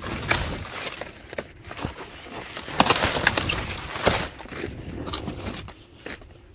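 Leaves being snapped by hand off tall thousand-headed kale plants: an irregular series of sharp snaps over leaf rustling.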